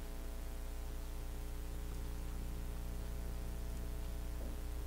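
Steady low electrical mains hum over faint hiss: room tone with no other distinct sound.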